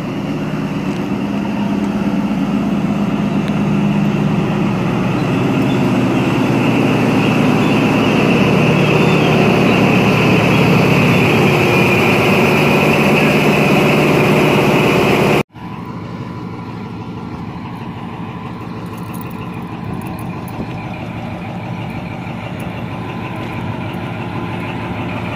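XPT diesel power car running past at close range, its engine drone growing louder as it comes alongside. About halfway through it cuts off abruptly, and a quieter steady running sound of the passing train follows.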